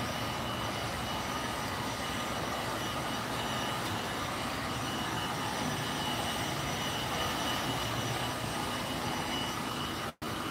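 Steady rushing background noise with a faint high steady tone, broken by a brief dropout about ten seconds in.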